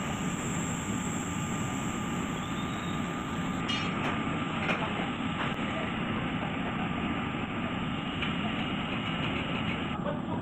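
Steady mechanical rumble with a thin, steady high whine over it.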